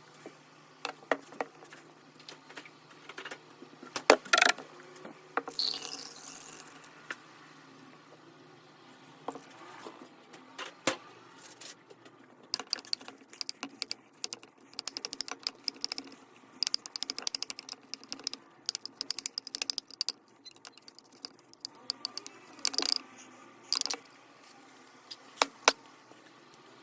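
Close, crisp clicking, tapping and crackling of small hard objects, in scattered single clicks at first and then dense runs of rapid crackles through the middle, with a brief swishing sound about six seconds in.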